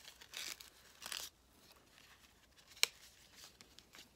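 Paper cards and envelopes rustling as they are unbundled and handled, with a single sharp click a little under three seconds in.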